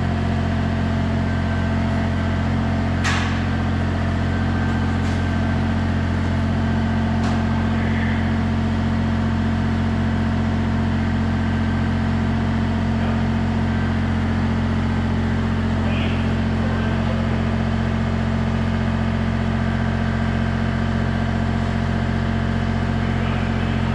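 Compact excavator's diesel engine running at a steady speed while it holds a suspended load. A sharp clank comes about three seconds in, with a couple of fainter knocks after it.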